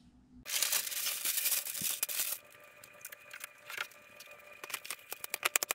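Large paper plan sheet rustling and crinkling as it is handled and spread flat, for about two seconds, followed by scattered light ticks and a quick run of sharp clicks near the end.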